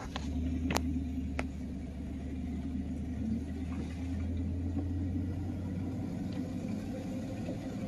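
Steady low rumble of a car's engine running, heard from inside the car, with two sharp clicks about a second in.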